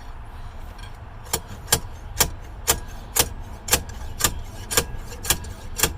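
Homemade slide hammer working a pin out of a steering column's tilt mechanism: the sliding weight knocks against its stop in sharp metallic clicks, about two a second, starting a little over a second in, with the pin not yet coming free.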